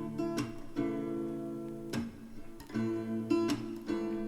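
Background music: strummed acoustic guitar chords in an instrumental gap of a pop song, the chord changing about once a second.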